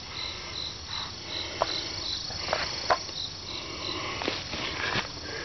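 An insect chirping steadily, short high-pitched pulses about three a second, fading after the first couple of seconds. A few scattered clicks and rustles of handling or steps in grass are heard over it.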